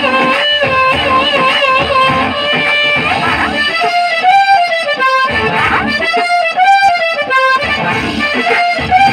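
Loud Telugu drama dance song: a wavering lead instrument melody over a steady drum beat.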